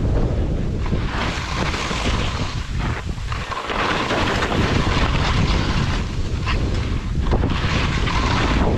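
Skis scraping and hissing over crusty spring snow, swelling and dipping with the turns, under heavy wind rumble on the microphone.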